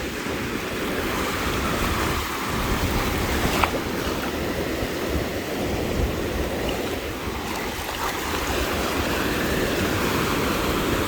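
Atlantic Ocean surf washing steadily onto a sandy beach, with wind rumbling on the microphone. There is one sharp click about three and a half seconds in.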